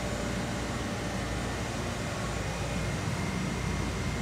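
Steady, unbroken drone of a ship's engine-room machinery, with a diesel generator running under load, a constant low hum and a faint high whine.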